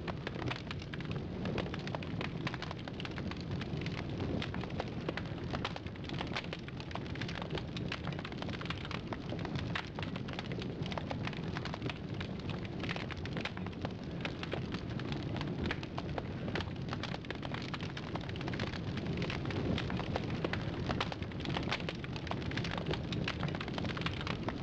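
Sound effect of fire crackling: a steady, dense hiss with many small pops and snaps throughout.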